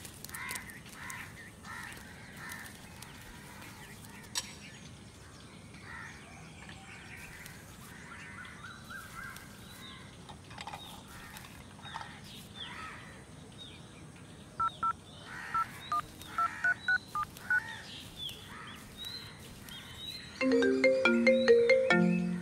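Birds chirping in the background, with a run of short, sharp calls in the middle. About two seconds from the end, a mobile phone ringtone starts loudly, playing a stepping melody.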